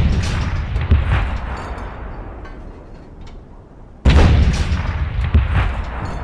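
Battlefield sound effect of heavy artillery explosions: a blast with a long rumbling decay at the start and a second one about four seconds in, with a smaller hit after about a second and faint scattered shots in between.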